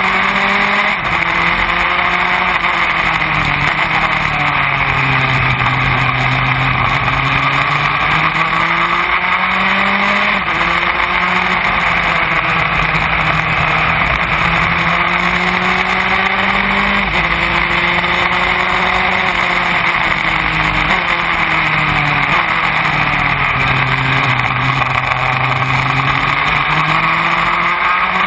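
Formula Enterprise open-wheel race car engine heard from the cockpit at racing speed, its pitch climbing under acceleration with sudden drops at upshifts and falling away under braking for corners. A steady rushing noise lies underneath.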